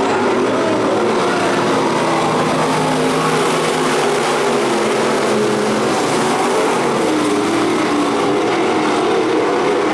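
A pack of dirt-track stock cars racing, several engines running together at a steady, loud level with overlapping engine notes.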